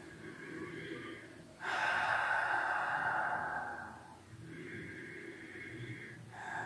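A man taking long, slow, deep breaths in and out, the loudest lasting about two seconds from roughly two seconds in. It is a demonstration of slow belly (navel) breathing, pranayama, used to calm a racing heart and nerves before speaking.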